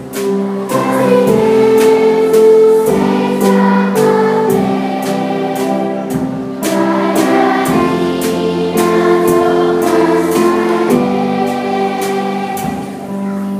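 A children's choir singing in unison, backed by violin, guitar and a drum kit, with a cymbal ticking out a steady beat about twice a second.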